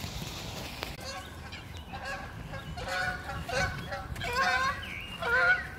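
Geese honking, a run of short repeated calls that start about a second in and get louder toward the end.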